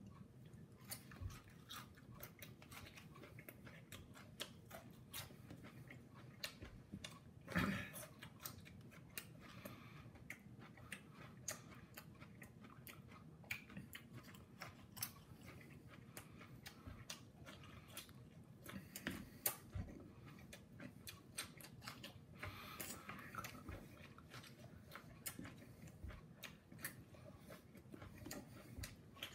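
Person biting and chewing raw serrano peppers in quick succession: a steady run of faint wet crunches and mouth clicks, with a couple of louder bites.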